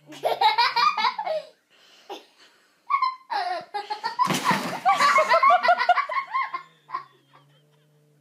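People laughing hard in two long fits: a short one at the start and a longer, louder one from about three seconds in.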